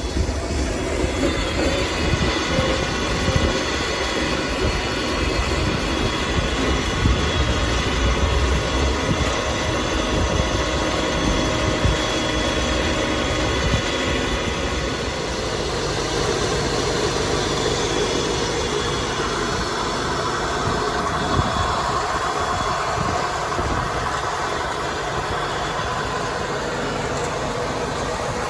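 Toro Z593-D diesel zero-turn mower running steadily, its engine rumble mixed with a whine; the sound changes about halfway through, with the whine growing stronger.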